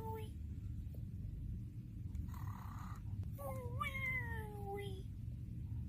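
Cartoon snoring sound effect: a short breathy intake, then a long whistling exhale that falls in pitch and sounds rather like a cat's meow. The end of one whistle is heard right at the start, and the full cycle follows, all over a steady low hum.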